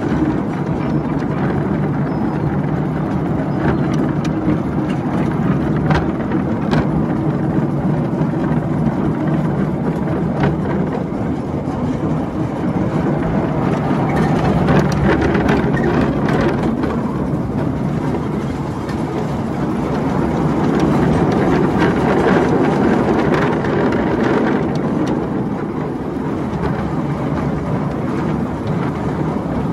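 Miniature railway train running along the track, heard from a passenger car behind the locomotive: a steady running noise with scattered short clicks from the wheels on the rails.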